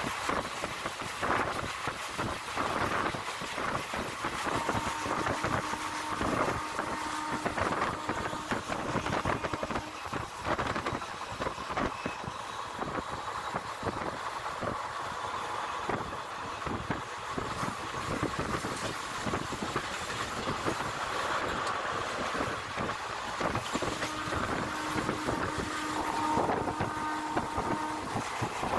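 Express passenger train running at speed, heard from an open coach door: a steady rumble of wheels on rails with quick irregular clatter over joints and rushing air. A faint steady tone rises above it twice, about five seconds in and again near the end.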